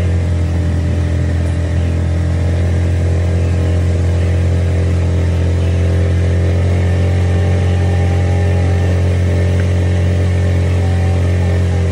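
Boat engine running steadily at a constant low pitch, with no change in speed.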